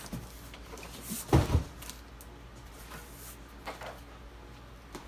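Cardboard box being handled: two dull thumps in quick succession about a second and a half in, with light scraping and clicks.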